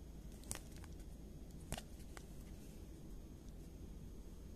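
A few faint, sharp clicks of rigid plastic card toploaders being handled and set down, over a low steady room hum.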